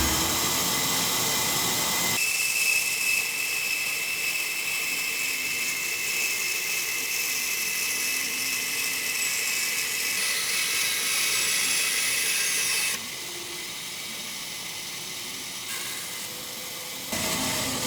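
Small high-speed power tool whirring with a high-pitched hiss, in several short cut-together stretches; its pitch falls shortly before one stretch ends.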